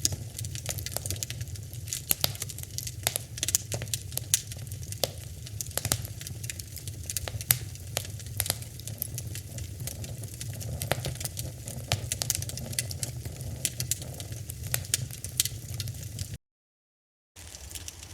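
Fire burning and crackling, with many sharp irregular pops and snaps over a steady low rumble. About 16 seconds in it cuts off to a second of silence, then another crackling fire starts with less rumble beneath it.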